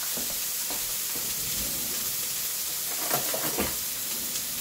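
Chicken searing in hot olive oil in a stainless steel skillet, sizzling with a steady hiss, with a few small pops about three seconds in.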